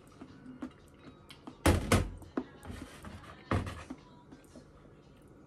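Tableware knocking on a stainless-steel sink drainboard: a ceramic bowl with a fork in it set down, two sharp clinks close together about a second and a half in, then another knock about two seconds later as a plate on the steel is handled, with small clicks between.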